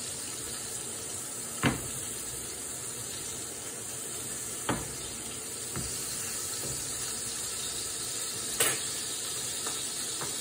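Burger patty sizzling steadily in a frying pan, with a few sharp clinks of a metal utensil against the pan, about 2, 5 and 9 seconds in.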